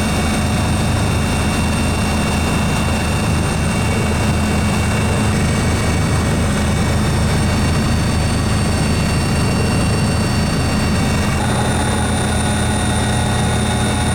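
Helicopter rotor and engine noise, steady and unchanging, with a deep low drone and several thin high whines above it.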